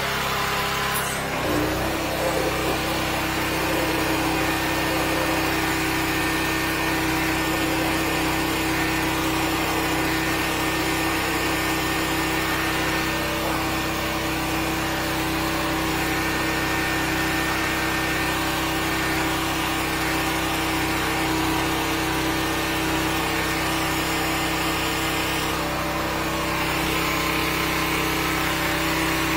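13-horsepower high-pressure sewer jetter's engine running steadily, with a constant hiss over it. Its note changes about a second and a half in, then holds steady.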